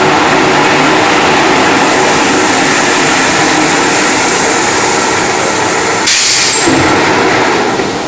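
Tornado airless paint sprayer running and spraying: a loud steady hiss with pump and motor noise, which changes abruptly about six seconds in and then eases slightly.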